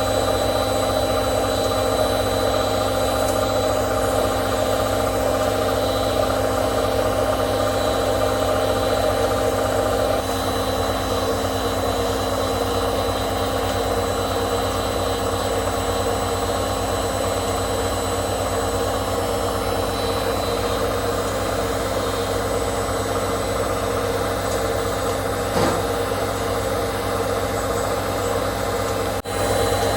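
Hotpoint 18680 Super Electronic washing machine spinning, its brushed motor and drum running with a steady hum that eases a little about ten seconds in. The motor runs smoothly on newly fitted brushes.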